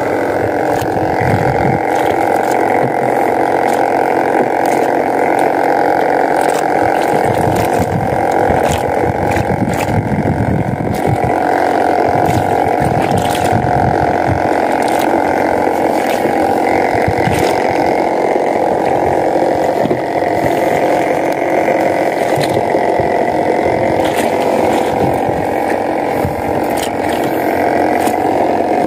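Small outboard engine of a fishing boat running steadily, with a few scattered faint clicks over it.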